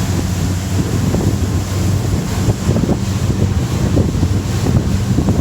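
Twin 200 hp V6 Mercury outboards running steadily at about 3,500 RPM under way, a constant low engine hum. Wind buffets the microphone, and water rushes past the hull.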